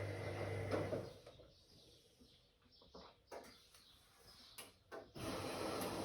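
Whirlpool AWOC 8283 washing machine motor running with a steady hum, cutting off about a second in and starting up again about five seconds in. In the quiet gap between, a few faint clicks are heard.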